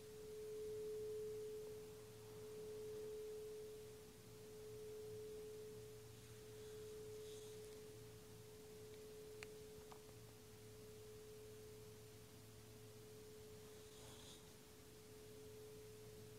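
Metal singing bowl's single ringing tone dying away: one steady mid-pitched note that swells and ebbs about every two seconds as it slowly fades.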